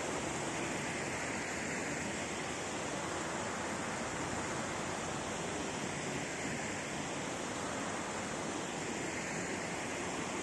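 Steady rushing splash of a large park fountain, its tall water jet falling into tiered pools.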